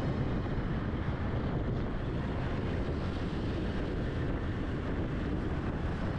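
Steady wind rushing over the microphone of a camera riding on a moving motor scooter, with road and traffic noise beneath it.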